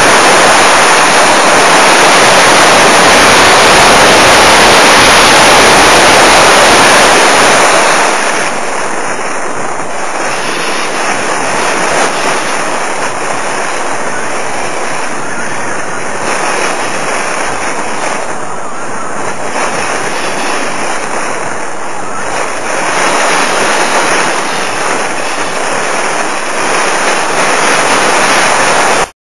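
Wind rushing over the microphone of an onboard camera on a model electric glider in flight: a steady, loud rush. It is loudest for the first eight seconds or so, then drops a little and holds.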